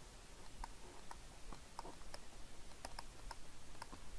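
Faint, irregular light clicks and taps, a few each second, from a stylus on a pen tablet during handwriting.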